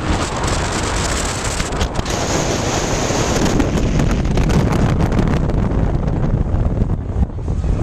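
Wind buffeting the microphone high up in the open air: a steady rushing noise with a deep rumble underneath.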